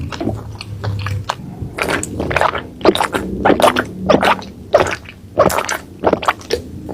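Close-up eating sounds: wet chewing and mouth clicks, in an irregular run of short noises, from someone eating seblak bakso keju, a spicy soup with meatballs and cheese.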